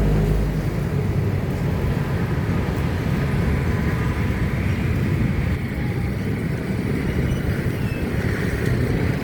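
Steady street noise with passing motor vehicles, a rumbling, low-pitched roar with no single event standing out.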